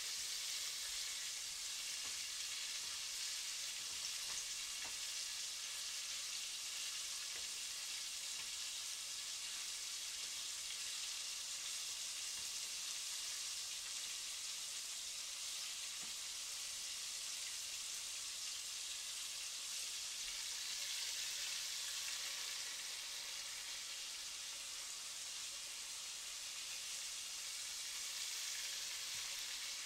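Chicken strips deep-frying in hot vegetable oil in a Dutch oven, a steady sizzle.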